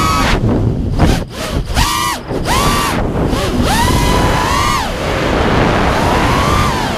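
A 5-inch FPV racing quadcopter's four brushless motors (Lumenier RX2206 2350Kv) spinning HQ 5040 triblade propellers, whining in a pitch that rises and falls with the throttle. There are several quick throttle chops and punches in the first two seconds, then longer climbing sweeps. Wind rumbles on the onboard microphone underneath.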